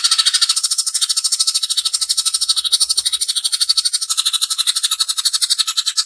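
Cucak ijo (greater green leafbird) giving its harsh rapid-fire 'tembakan kasar' call: a loud, high, rattling run of very fast even pulses, about a dozen or more a second, held without a break.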